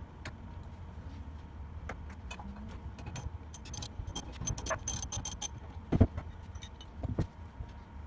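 Steel sprockets and fittings on a cylinder mower's side plate being handled, with a run of light metallic clinks and small rattles, then two dull knocks near the end, the first the louder.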